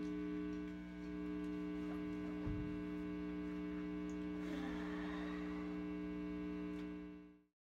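Steady electrical mains hum from an amplified electric guitar rig, a low buzz with many overtones, which cuts off suddenly near the end.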